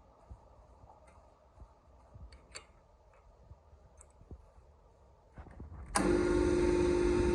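Faint scattered clicks and taps of handling, then an electric power tool switches on abruptly about six seconds in and runs steadily at speed.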